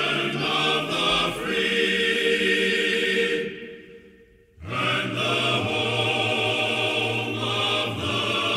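Outro background music of long held, choir-like chords. It fades away about three and a half seconds in and starts again suddenly about a second later.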